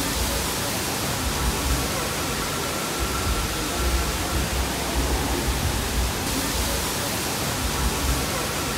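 Steady rushing of a waterfall: a dense, even roar of falling water with a low rumble underneath.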